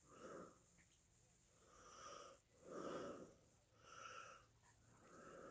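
Faint breathing through the nose close to the microphone: five soft breaths in and out.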